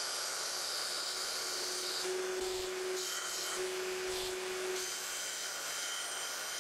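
Belt grinder running with an 80-grit belt, grinding a rounded profile onto a small steel piece held against the belt in passes.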